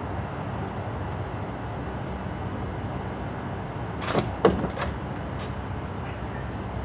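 Steady low background rumble, with a short clatter of sharp knocks and a thump a little over four seconds in.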